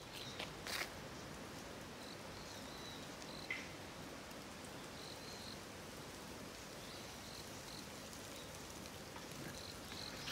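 Outdoor ambience: a steady hiss with faint, short, high chirps that come and go every second or so. A few light clicks near the start, and a sharper click about three and a half seconds in.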